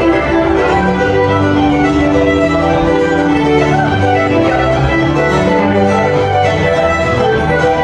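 Fiddle music with guitar accompaniment, playing steadily at an even level.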